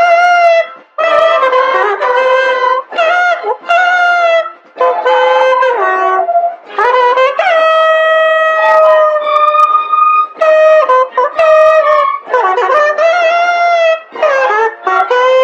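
Music: a melody of held and bending notes played on a horn-like wind instrument, in phrases broken by short pauses.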